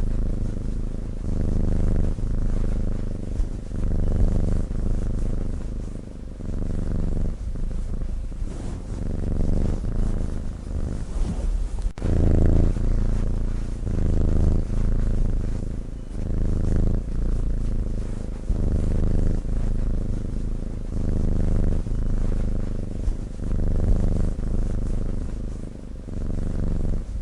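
A sleeping cat's low, rhythmic rumble with each breath in and out, repeating about once a second.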